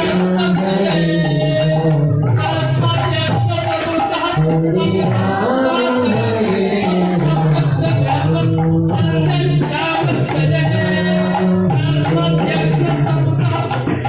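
Devotional kirtan-style music: melodic singing over a steady, evenly repeating beat of light jingling percussion and drum.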